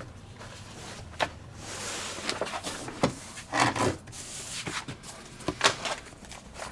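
Books and papers being handled: rubbing and rustling with several light knocks, the loudest rustle a little over halfway through.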